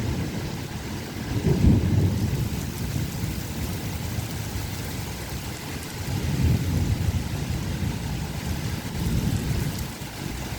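Storm-force wind gusting and buffeting the microphone, a low rumble that surges in gusts about a second and a half in, again past the middle, and once more near the end.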